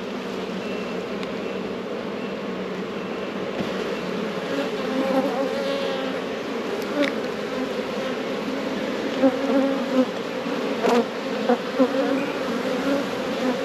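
Honey bees buzzing over the open frames of a hive, a steady hum. From about halfway there are a few sharp clicks and knocks of the wooden frames being shifted.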